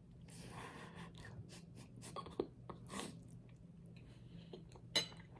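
Quiet close-up eating sounds: soft chewing with a few small mouth clicks and smacks, the sharpest about five seconds in.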